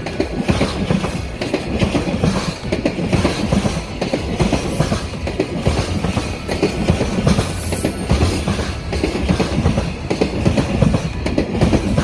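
Freight train's wagons rolling past at speed, the wheels clattering steadily over the rail joints.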